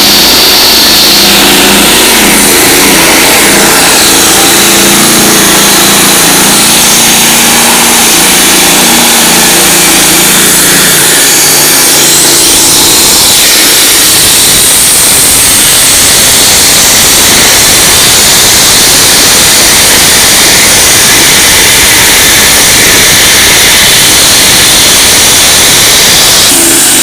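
Heavy road-construction machinery running loud. A steady engine note for the first ten seconds or so gives way to a harsher, noisier working sound.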